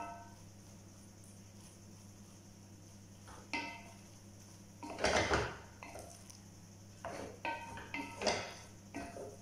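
Wooden spoon stirring rice in an enamelled pot, knocking against the pot with short ringing clinks, several in the second half, and a louder scrape about five seconds in. A steady low hum runs underneath.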